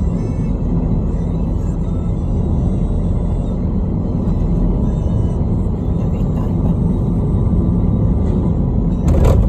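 Car driving along a highway: a steady low rumble of road and engine noise, with a brief louder rush about nine seconds in.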